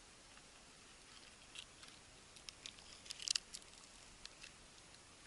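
Faint clicks and crackles of a mud-caked, waterlogged casing being handled and pulled apart by hand, with a cluster of sharper cracks about three seconds in.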